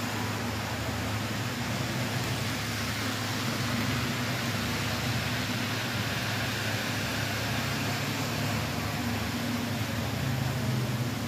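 HO scale model trains running on a layout, making a steady whirring rumble of motors and wheels on the rails. Among them is a Rivarossi Super Hudson steam locomotive running too fast.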